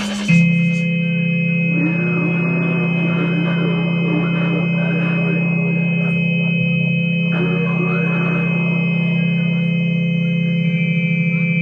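Droning electronic music: low held tones and a high steady whine, with wobbling, sliding sounds coming in about two seconds in and again about seven seconds in.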